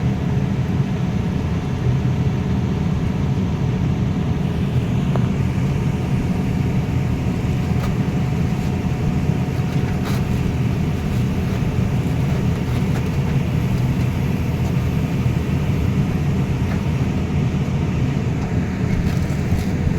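Heavy diesel machinery engines running steadily at a construction dig, a low, even drone.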